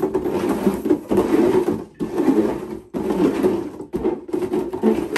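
Pink plastic bins being slid and shuffled across a tiled tabletop, scraping loudly in about five strokes roughly a second apart.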